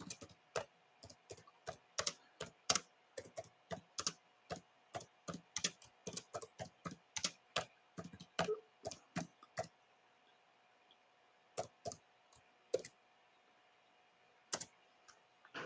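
Typing on a computer keyboard: an irregular run of keystrokes for about ten seconds, then a pause broken by a few scattered clicks.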